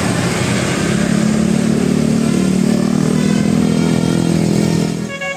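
A motor vehicle driving past close by with its engine running loud; the rumble swells about a second in and drops away near the end, where the first notes of a musical telolet horn begin.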